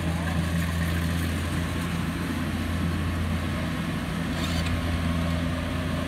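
Kubota combine harvester's engine running steadily, a constant low drone with no change in pitch.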